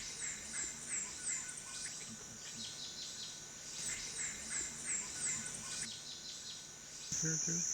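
Bird song: a run of about five quick, high, downward-slurred notes, repeated once a few seconds later, with scattered softer chirps among them. An insect starts a steady, high buzz near the end.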